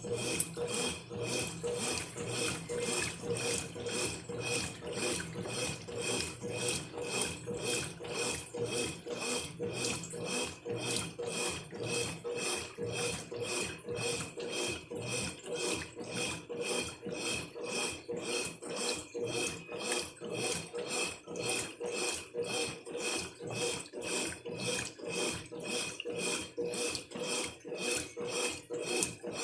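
Brastemp Ative 11 kg top-loading washing machine agitating a full load of laundry on its stain-removal cycle: an even swish-and-rub of wet clothes about two to three strokes a second over a steady motor hum.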